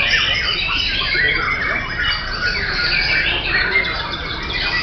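Several caged white-rumped shamas (murai batu) singing at once, a dense, unbroken chorus of overlapping whistles, chirps and trills.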